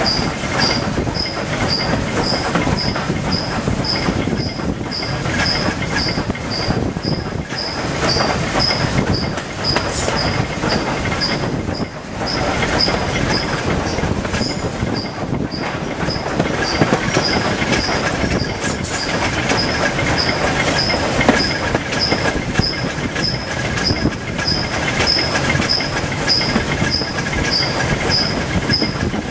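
S&DJR 7F 2-8-0 steam locomotive 53808 running downhill, heard from its footplate: a steady rumble and clatter of wheels and motion, with a high-pitched tick or squeak repeating evenly about twice a second.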